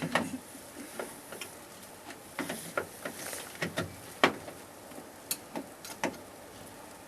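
Irregular clicks and knocks of hand tools and metal parts working inside a van's door to unbolt the outside door handle.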